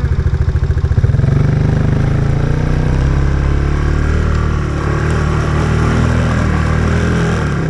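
A farm vehicle's engine picks up revs about a second in and runs steadily at higher revs. Near the end it drops back to a slow, evenly pulsing idle.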